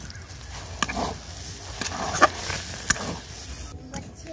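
Steel ladle stirring and pressing thick semolina-and-milk dough in an iron kadai, with a few sharp clinks and scrapes of the ladle against the pan.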